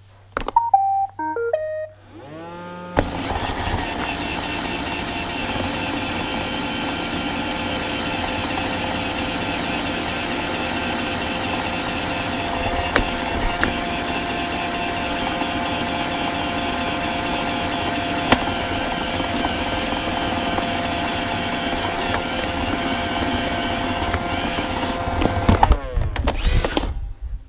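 iRobot Roomba robot vacuum plays its short start-up tune of stepped beeps, then runs with a steady whir of its vacuum motor and brushes while failing to tow a load too heavy for it. Near the end it shuts off, its motor winding down in a falling whine with some rattling.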